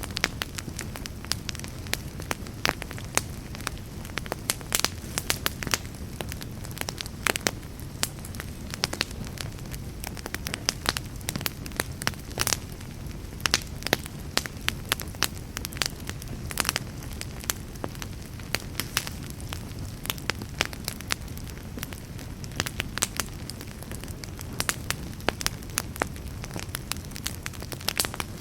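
Fireplace fire crackling: many irregular sharp pops and snaps over a steady low rumble of burning.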